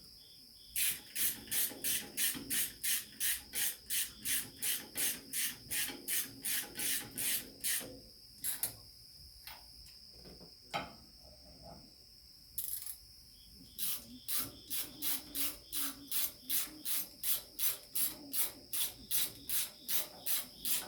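Socket ratchet wrench running 5/8 manifold nuts down onto the studs of a Ford 2N tractor: bursts of ratchet clicking about three strokes a second, a pause with a few single clicks in the middle, then the same rhythm again.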